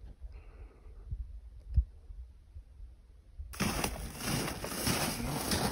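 Low wind rumble on the microphone with a few soft thumps, then, from about three and a half seconds in, a louder steady rustling hiss of footsteps swishing through dry grass and snow.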